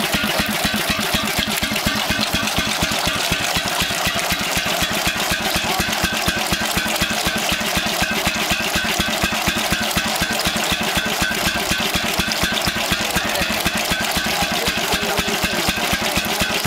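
1908 F.O. Beijer twin-flywheel stationary engine running steadily, its strokes coming in a rapid, even beat.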